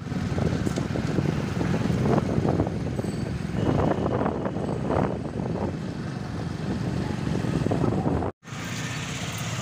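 Road traffic noise of passing vehicles, with a brief dropout about eight seconds in.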